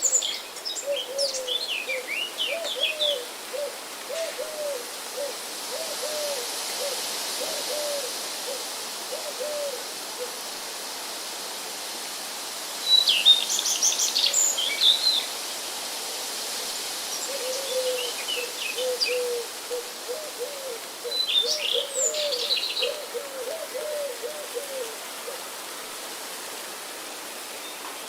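Forest birds: one bird gives a low hooting call, repeated over and over in two long runs. Other songbirds add short bursts of high chirping phrases.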